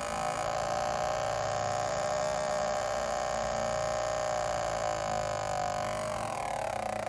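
Electronic combustible-gas leak detector at a leaking water heater gas connector, its ticking run together into a continuous buzzing tone from a high gas reading. Near the end the tone falls in pitch as the reading drops.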